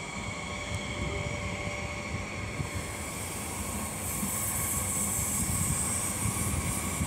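Frecciarossa high-speed electric train pulling away: a steady electric whine of several high tones over a low rumble, with a hiss that swells from about three seconds in as the train gathers way.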